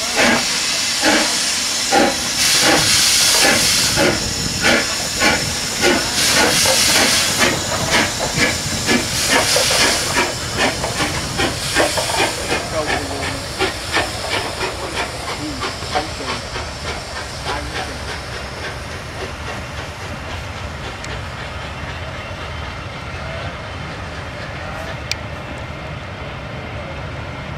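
LMS Royal Scot class 4-6-0 No. 46115 Scots Guardsman, a three-cylinder steam locomotive, passing under steam. Its exhaust chuffs about two to three times a second, with loud bursts of steam hissing in the first ten seconds. The beats fade after about fifteen seconds, leaving the steady rumble of its coaches rolling by.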